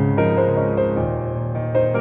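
Background music: soft piano chords changing about every half second.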